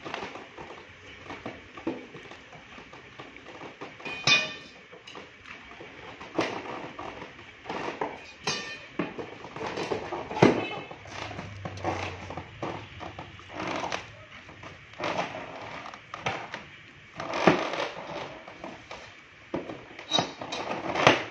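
Irregular clanks, scrapes and crackles of a metal pry bar working a cured fiberglass shade panel off its mold, with a few louder knocks scattered through.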